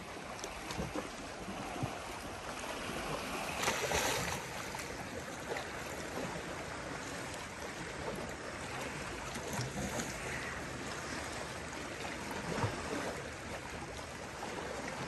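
Calm sea water lapping at the shore in a steady wash, a little louder about four seconds in.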